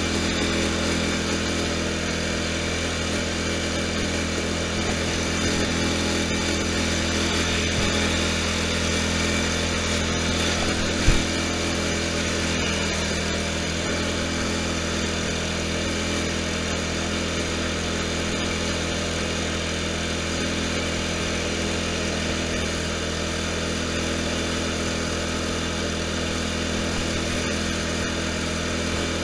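Poulan Pro lawn tractor's engine running steadily under way, a constant drone with no change in speed. One short thump about eleven seconds in.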